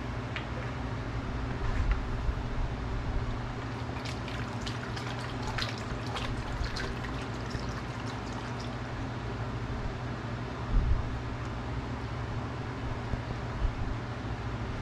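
Engine coolant poured through a funnel into a motorcycle's plastic coolant reservoir, trickling and splashing as it fills toward the full mark, over a steady low hum.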